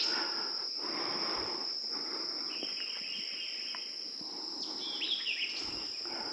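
Insects trilling steadily at one high pitch, with a few short bird chirps about five seconds in.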